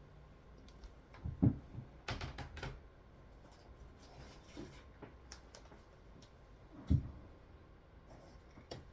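Table-top handling sounds: scattered light clicks and rustles, with two soft knocks about a second and a half in and again near seven seconds, as graded comics are moved about and set down.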